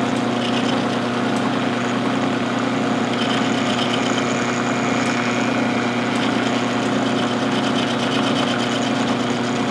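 Milling machine running with a steady hum, its end mill at a steel arbor held in the vise, milling hex flats on it.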